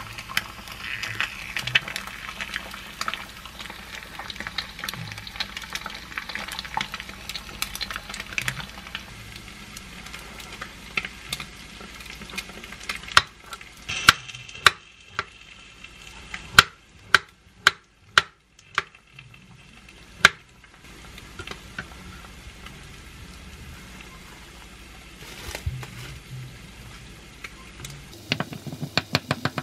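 An egg frying in a small pan with a steady sizzle, which fades after about nine seconds. A knife then slices through an avocado on a wooden cutting board, knocking the board sharply about ten times. Near the end comes a quick clatter of dishware.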